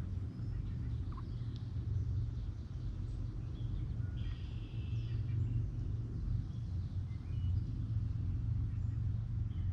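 Steady low outdoor rumble, with a few faint, short high chirps over it.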